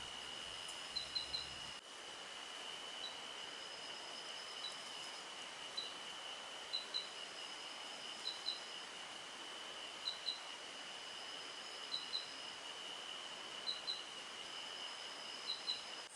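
Night-time insect chorus: a steady high drone with short high chirps in twos and threes every second or two.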